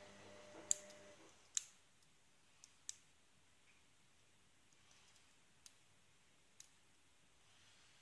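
Small sharp clicks, about six at irregular intervals, from a brass SPP TIFON 5-pin padlock being single-pin picked with a hook and top-of-keyway tension: pins setting and the pick tapping inside the keyway. A faint low hum stops about a second in.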